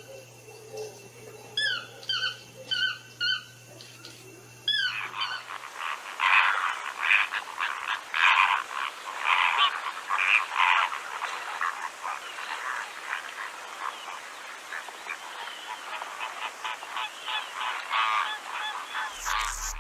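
A few seconds of short, high calls, some in pairs. Then, suddenly louder, a dense chorus of many overlapping calls from a flock of birds.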